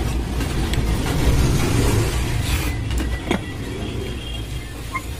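Steady low background rumble with a few faint clicks and taps.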